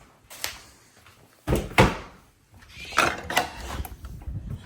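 A few separate knocks and clattering bumps from things being handled, the loudest about one and a half to two seconds in.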